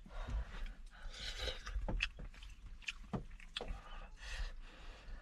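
Someone eating noodles from a pot: a handful of sharp clicks of a utensil against the pot, mixed with short hissy slurps.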